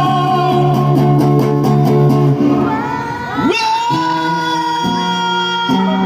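Singer holding a long final note over guitar in the closing bars of a Malay pop ballad. The guitar chords change about two and a half seconds in and ring on.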